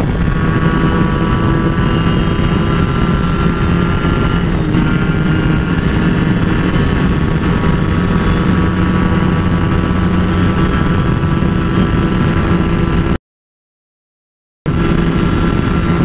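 Sport motorcycle engine running at high, steady revs during a top-speed run. The sound cuts out to silence for about a second and a half near the end.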